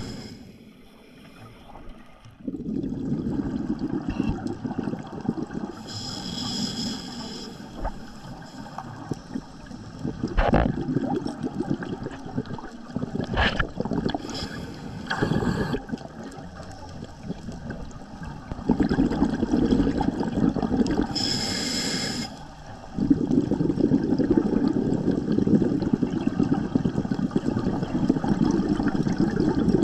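A scuba diver breathing through a regulator underwater: a short high hiss of each inhalation, then a long gurgling rush of exhaled bubbles, repeated a few times. A few sharp clicks come in the middle.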